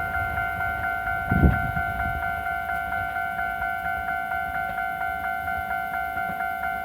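Japanese railway level-crossing warning bell ringing, a repeated two-tone electronic ding at about three strikes a second. A passing train's low rumble fades under it over the first couple of seconds, with one heavier low thump about a second and a half in.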